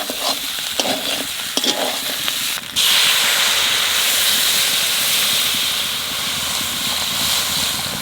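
Chicken pieces frying in spice paste and oil in a pan, sizzling, with a few clinks of the stirring spoon. About three seconds in, water is poured in and the sizzle jumps to a louder, steady hiss of steam.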